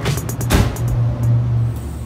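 Background music with a steady drum beat over a sustained bass line.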